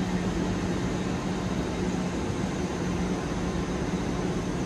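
Trains at a platform: a steady low engine hum over an even rushing noise as a GWR Class 800 train pulls away beside a standing diesel multiple unit.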